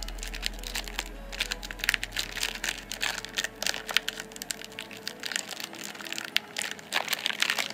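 Foil trading-card pack wrapper crinkling and crackling in the hands as it is twisted and pulled at, a pack that resists opening.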